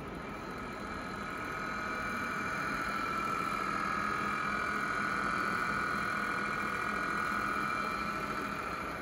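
A steady machine hum with a high whine that grows louder, holds through the middle, and fades near the end, as when walking past a running machine.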